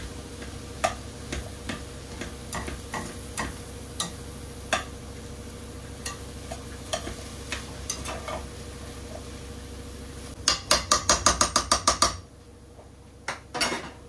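Metal slotted spatula scraping and clinking against a stainless steel sauté pan while stirring a chickpea and potato hash, with scattered sharp clinks, then a quick run of about ten loud taps near the end. A low background hum cuts off just after the taps.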